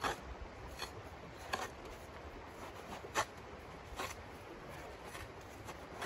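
Small hand shovel scraping and scooping crusty, icy snow: six or so short, sharp scrapes at uneven intervals, roughly one a second.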